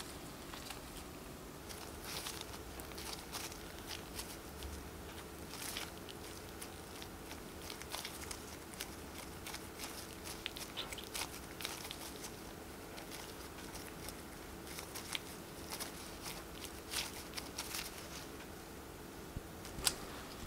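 Gloved hands pressing and shaping crumbly scone dough around a filling: irregular soft crackling and rustling from the disposable plastic gloves and the dough, over a faint steady hum, with one sharper tick near the end.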